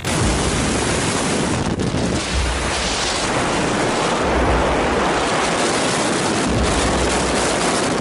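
Freefall wind rushing over a helmet-mounted camera's microphone: a steady rush of noise with uneven low buffeting.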